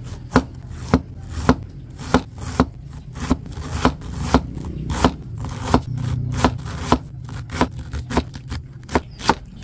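Kitchen knife slicing cabbage thinly against a cutting board, a steady run of sharp strokes somewhat under two a second.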